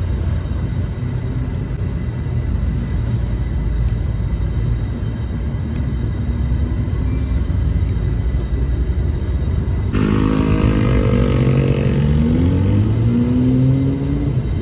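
Steady low rumble, and about ten seconds in a motor vehicle's engine comes in close, its pitch rising as it accelerates.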